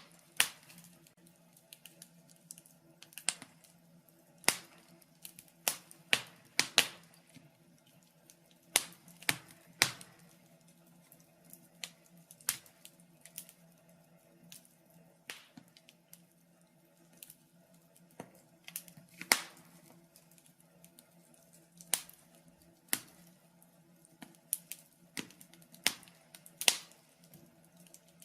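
Wood fire burning in a fireplace, crackling with irregular sharp pops and snaps, a louder one every few seconds.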